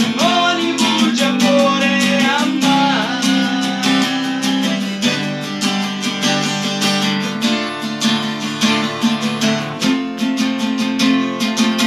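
Acoustic guitar (violão) strummed in a steady rhythm, playing the chord accompaniment of a song.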